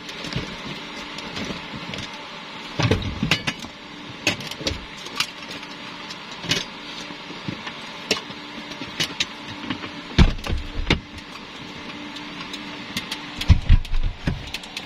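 Sharp clicks and knocks of hands and fittings at the cabin door of a Cessna Caravan, several in clusters about three seconds in, about ten seconds in and near the end, over a steady hum in the cabin.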